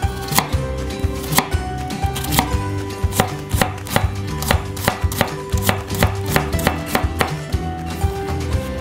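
Chef's knife chopping and mincing a garlic clove on a wooden cutting board: a run of sharp knocks, spaced at first, then quickening into rapid mincing strokes in the middle and again near the end.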